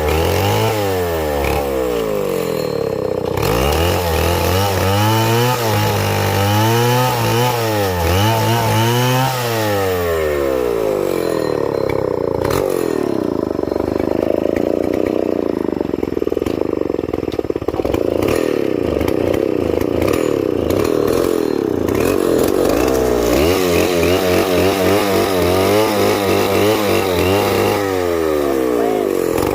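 Two-stroke chainsaw engine revved up and down over and over, then held at high speed for about twelve seconds, then revved up and down again.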